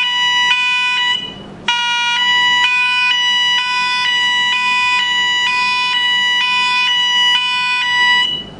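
LONGSIN LS-104 electronic strobe siren sounding its ambulance tone, a two-tone hi-lo alarm that swaps pitch about twice a second. It breaks off for about half a second just over a second in, then resumes, and drops away near the end.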